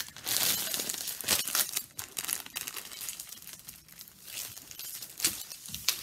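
Clear plastic packaging crinkling and rustling as a rolled diamond-painting canvas in its plastic sleeve is handled. The rustling is heaviest in the first two seconds, then goes on in irregular crackles with a few sharp clicks.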